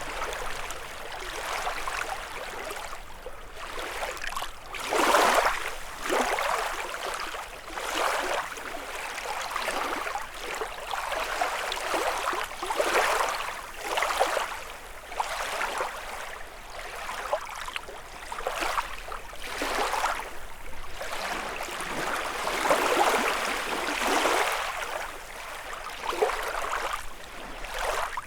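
Small lake waves lapping and splashing on the shore, one gentle wash every second or two.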